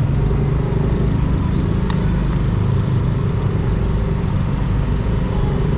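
Yamaha Aerox 155 scooter's single-cylinder engine running steadily at low road speed, with road and wind rumble on the rider's microphone.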